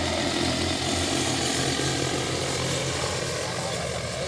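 Large multirotor agricultural drone's propellers humming steadily as it flies spreading granular fertilizer, growing slightly fainter as it moves away near the end.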